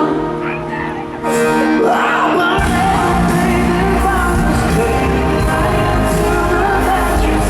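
Live pop band with a sung lead vocal. Heavy bass and drums come in about two and a half seconds in and carry on under the voice.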